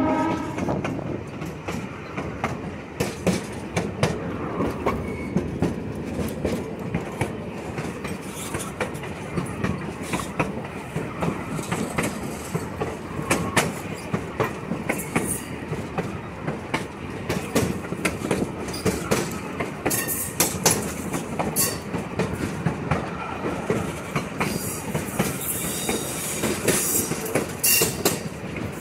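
Train wheels rolling over jointed track, heard from an open gondola car: a steady rumble with irregular clicks and clacks at the rail joints. High wheel squeal rises at times, more so in the later part.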